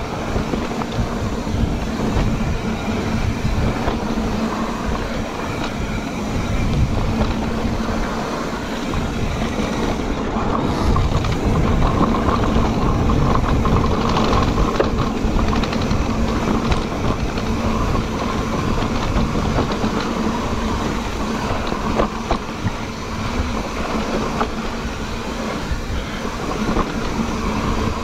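Cannondale Moterra electric mountain bike rolling fast over a rough dirt trail: a continuous rumble of tyres and the frame rattling and clattering over bumps, with a steady low hum under it.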